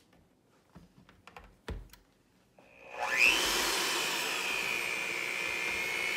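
A few light clicks and taps, then about three seconds in an electric hand mixer switches on: its motor whine rises quickly to speed and then runs steadily as it mixes the batter.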